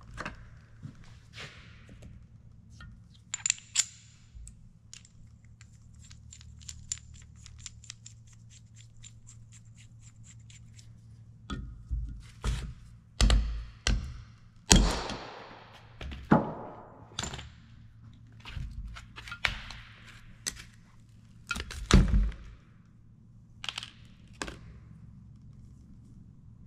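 A hammer striking a bearing race and seal driver to drive an old oil seal out of the cast-iron PTO housing of an International Harvester 1066 tractor. Light metallic clicking comes first. About twelve seconds in, a run of sharp, separate blows begins, the heaviest a little past the twenty-second mark.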